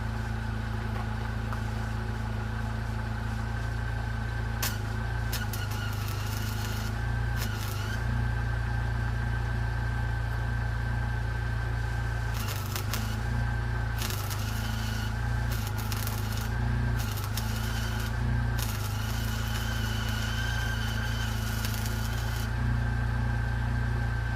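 Arc welding with a 1/16-inch 6013 stick rod on an engine-driven on-board welder. The arc crackles and hisses in bursts, starting about five seconds in and breaking off and restriking several times. Underneath is the steady idle of the Jeep's 2.5-litre four-cylinder engine at about 750 rpm, lower than it should be running for welding.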